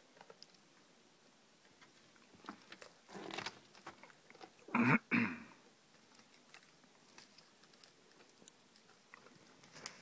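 Cow and calf moose browsing willow twigs: faint crunching and clicking of chewing, with louder crunches near the middle, the loudest a double crunch about five seconds in.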